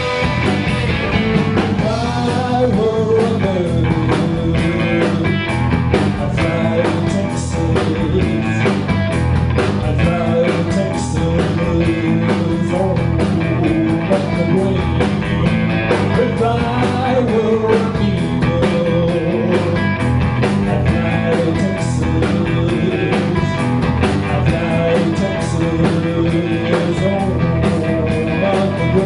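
Live blues-rock band playing, with electric guitar over a steady drum beat.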